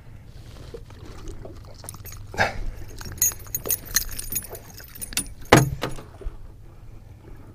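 Metallic jingling and clicking as a lure's hooks are worked out of a smallmouth bass's mouth, with scattered knocks of handling, the loudest a sharp knock about five and a half seconds in, over a steady low rumble.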